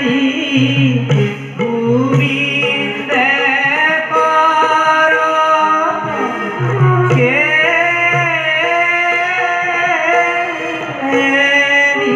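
Music: a voice singing a winding melody over drum accompaniment, with a low held note coming and going underneath.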